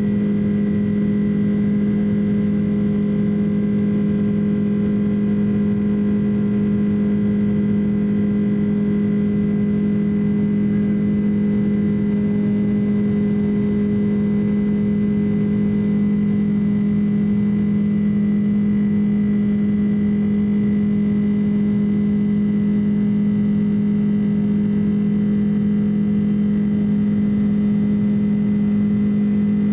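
Boeing 767-300 jet engines and airflow heard inside the passenger cabin while climbing out after takeoff. A steady loud drone with a strong low hum and a few fainter steady tones above it.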